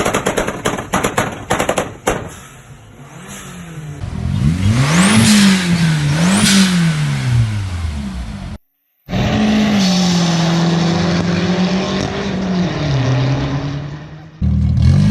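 Car exhausts in quick succession. First a rapid string of exhaust pops and crackles, then an engine revved up and back down twice. After a sudden cut, an engine holds a steady high note, then drops in pitch near the end.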